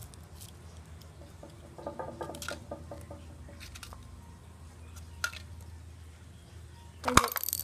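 Small handling noises: faint rustles and ticks over a steady low hum, with a single loud bump just before the end.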